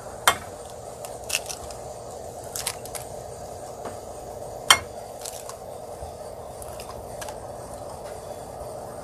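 Eggs being cracked one after another into a glass dish: a sharp shell crack about every four and a half seconds, three in all, the last right at the end, with smaller taps and clicks of shell between.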